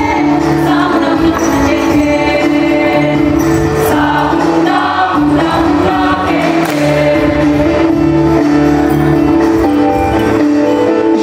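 Mixed choir of young men's and women's voices singing a song together, with music behind them.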